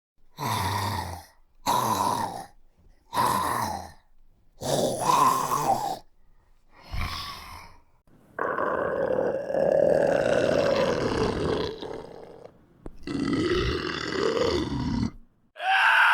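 Zombie vocal sound effect: a series of short guttural growls and grunts, about six in the first half, followed by longer rasping groans, the last cutting off suddenly.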